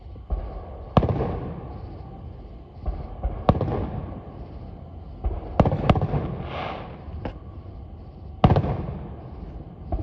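Aerial firework shells bursting: about six sharp bangs, two in quick succession around the middle, each trailing off in a rolling echo, with duller thumps in between.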